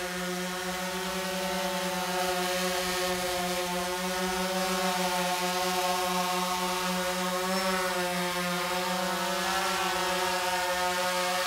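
Phantom quadcopter's four electric motors and propellers buzzing as it flies close by. The whine wavers a little in pitch as the drone moves, and it grows louder over the first couple of seconds as the drone comes nearer.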